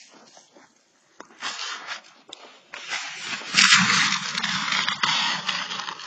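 Scraping and scuffing of a person slipping, falling and sliding on an icy driveway, louder from about three and a half seconds in.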